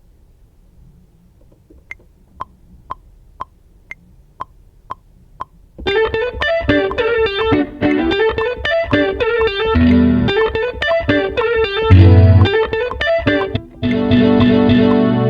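Instrumental beat. Soft clicks tick about twice a second, then about six seconds in a loud plucked electric guitar line with effects comes in over bass. Near the end it moves to held, sustained chords.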